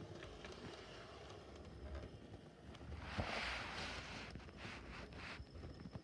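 Model Class 153 railcar running along model railway track, a faint low running sound of its motor and wheels. A brief rushing hiss about three seconds in, and a few clicks near the end.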